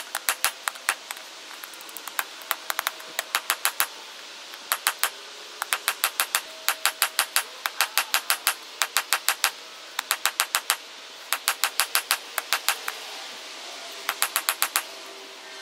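Hammer striking a glowing bar of forge-welded wrought iron and 1084 high-carbon steel on an anvil: quick runs of sharp blows, about five a second, broken by short pauses, over a steady background hiss.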